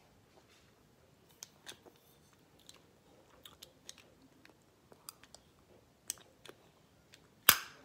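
Mouth sounds of someone sucking on a hard-candy Peeps lollipop: scattered small wet clicks and smacks of lips and tongue against the candy. There is one sharper, louder click near the end.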